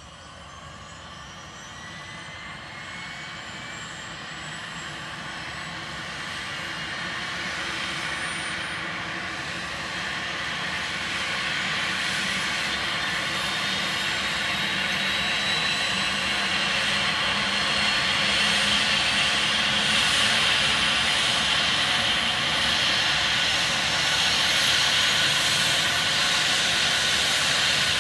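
Airbus H145 helicopter's turbine engines and rotor running up on the ground: a turbine whine climbs in pitch over the first few seconds, then settles into a steady high whine. Meanwhile the rotor noise grows steadily louder, the run-up before lift-off.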